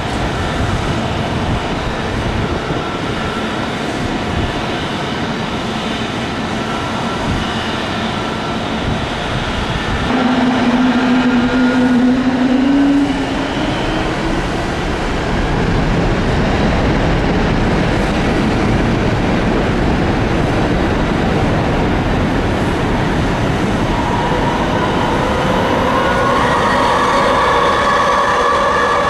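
Boeing 737-800's twin CFM56 turbofan engines running up to takeoff thrust as the airliner starts its takeoff roll: a loud, steady jet rush that grows louder about ten seconds in, with a steady engine whine coming in near the end.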